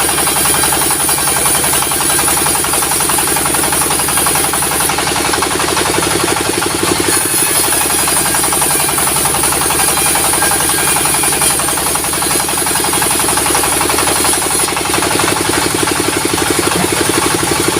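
Sawmill machinery running steadily, its diesel engine driving the saw with a fast, even knocking rhythm.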